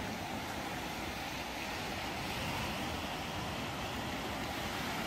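Steady wash of sea waves breaking on a rocky shore, an even rushing noise with no distinct events.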